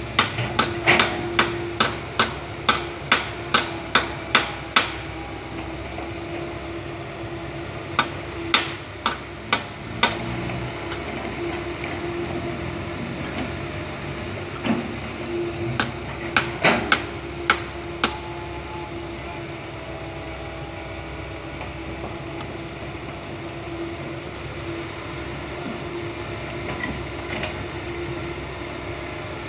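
Komatsu PC160 hydraulic excavator's diesel engine running steadily. Over it come runs of sharp metallic clanks in quick succession: about a dozen near the start, four more about a third of the way through, and half a dozen just past the middle.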